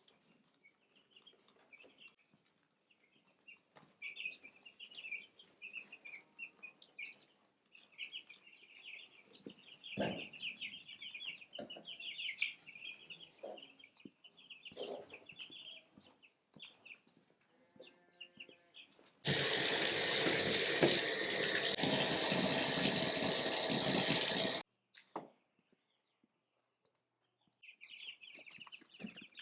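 Baby chicks peeping in a dense, high chatter. Partway through, about five seconds of loud running water from a tap starts and stops abruptly.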